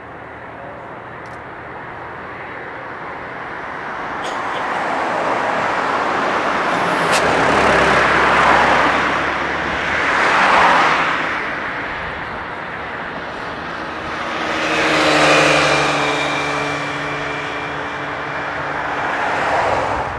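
Motor vehicles passing close by in several swells that rise and fade, the loudest about ten and fifteen seconds in, with a falling engine note as one goes past.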